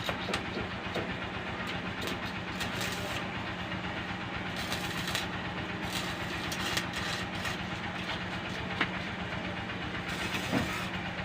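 Electric arc welding: a steady crackling sizzle with scattered sharp pops, over a constant low hum.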